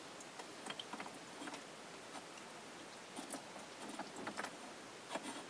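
Faint scattered clicks and light scrapes as the lid of a marine air conditioner's seawater strainer is screwed back on by hand.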